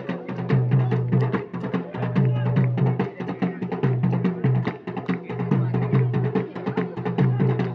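Drum-led music: rapid, steady drumbeats over deep notes that repeat in a regular pattern.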